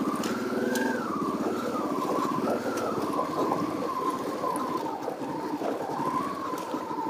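1989 Honda Transalp's V-twin engine running at low revs as the bike creeps forward, with a high whine that wavers up and down as the throttle is worked.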